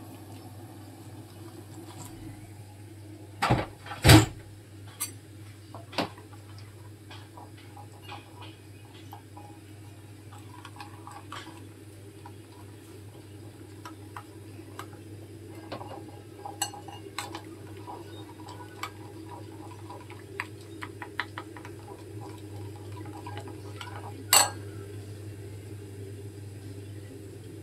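Metal spoon stirring gelatin in a glass bowl, with many small clinks and scrapes against the glass. There are two loud knocks about four seconds in and one sharp clink near the end, over a steady low hum.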